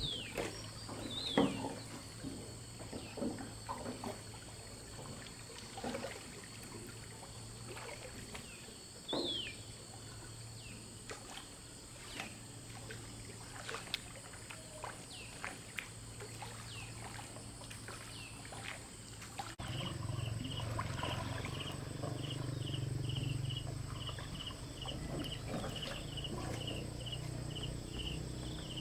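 Scattered faint clicks and a few short falling chirps over a low steady hum; then, after an abrupt change about two-thirds of the way in, an insect chirping steadily about twice a second.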